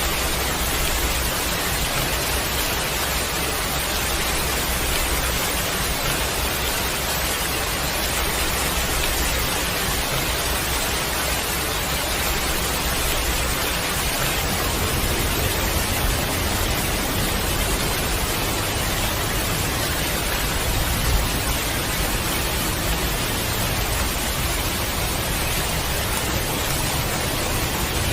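Heavy rain falling steadily, a dense even hiss with a low rumble beneath.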